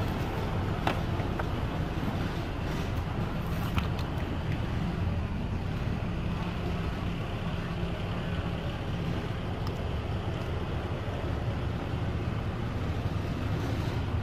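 Steady low background rumble with a hum, like distant traffic or a running motor. A few light clicks in the first four seconds come from batteries being handled.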